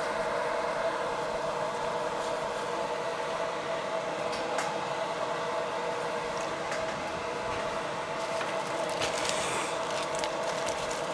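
Steady hum of a fan running at an electronics soldering bench, with a few faint light clicks and rubs as a gloved hand wipes the silicone work mat.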